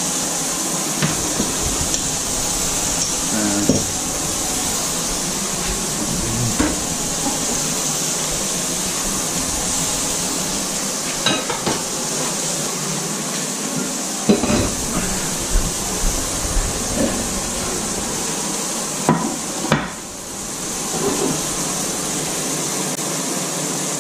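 Beef burger patties frying in a pan, a steady sizzling hiss, with scattered sharp knocks and clatters of plates, utensils and a knife on a wooden chopping board, the loudest in the second half.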